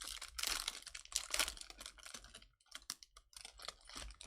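A pack of Bowman Chrome baseball cards being opened and the cards handled. A dense run of crackling and clicking lasts about two and a half seconds, then thins to scattered clicks.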